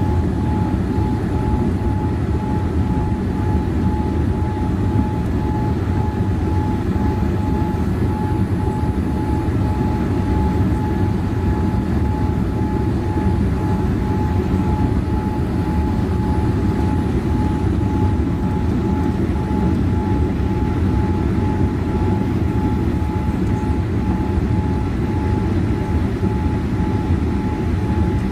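Jet airliner cabin noise heard at a window seat during the climb: a steady low rush of engine and airflow, with a thin constant whine above it.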